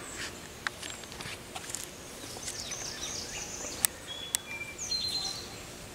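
Outdoor summer ambience of birds chirping a few short notes and insects, with a handful of sharp clicks.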